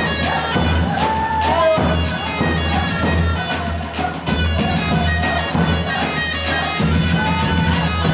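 Assyrian-style line-dance music: an ornamented, wavering lead melody over a steady, pulsing low beat, with a brief drop in loudness about four seconds in.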